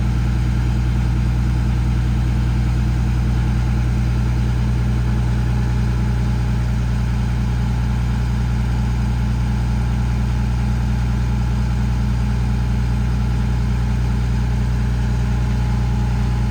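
PACCAR PX-6 inline-six diesel of a Kenworth T370 running steadily at raised idle, driving the PTO hydraulic pump that powers the truck's crane.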